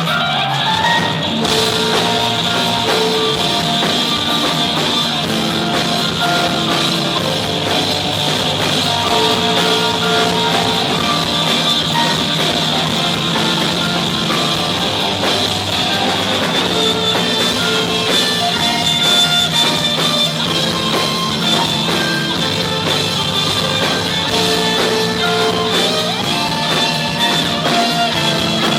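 Live rock band playing an instrumental passage: electric guitars, bass and drum kit, loud and steady with sustained chords.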